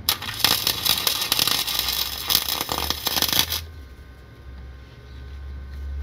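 Titanium Flux 125 flux-core welder's arc crackling during an overhead weld on a car's exhaust. It runs for about three and a half seconds, then stops abruptly as the trigger is released.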